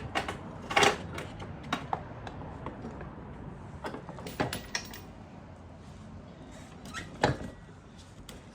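Scattered metallic clicks, clinks and knocks as a motorcycle drive chain is worked onto the rear sprocket and the rear wheel is shifted into place, with a louder knock about a second in and another near the end.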